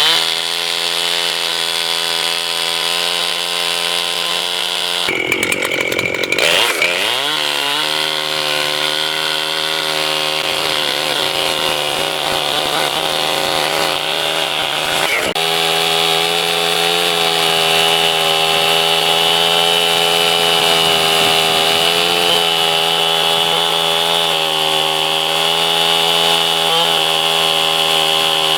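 Gas chainsaw running at high revs while bucking a dead oak into firewood. About five seconds in the revs drop sharply and then climb back to full speed.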